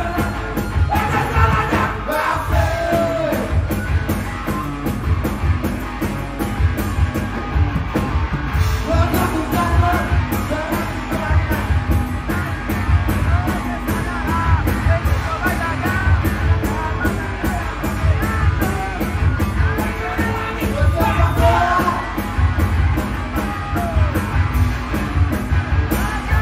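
Rock band playing live: electric guitar, electric bass and drum kit with a steady beat, and a sung vocal over them.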